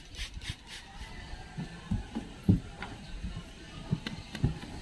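Trigger spray bottle misting water onto a car window to rinse off acid rain remover: several quick hissing sprays in the first second. Then soft low thumps and handling as the glass is wiped with a microfiber towel.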